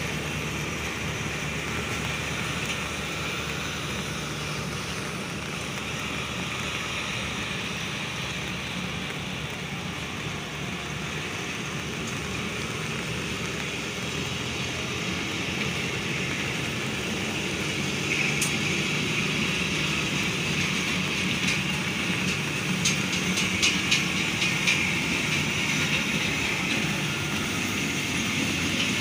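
Awam Express passenger coaches rolling past on the rails: a steady running rumble that grows louder about two-thirds of the way through, with a quick run of sharp clicks near the end as the wheels pass over rail joints.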